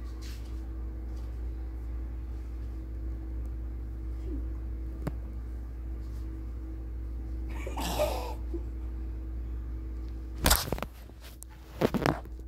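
Steady low hum with a faint steady tone underneath, then loud knocks and rubbing from the phone being handled and covered near the end. There is a short rustle about two-thirds of the way in.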